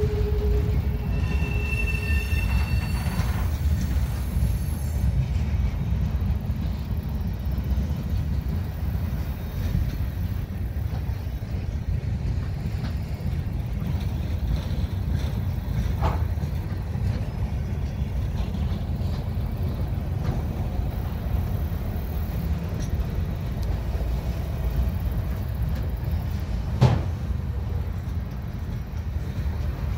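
Empty railroad flatcars rolling past with a steady low rumble of wheels on rail. Brief wheel squeal sounds in the first couple of seconds, and sharp metallic clanks come about halfway through and, louder, near the end.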